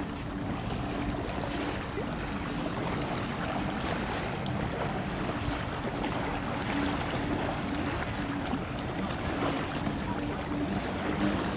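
Steady rushing of wind and water noise with a low, steady hum underneath.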